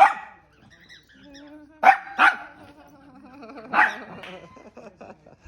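Malshi, a small Maltese–Shih Tzu cross dog, barking in four short, sharp barks: one at the start, a quick pair about two seconds in, and one more about a second and a half later.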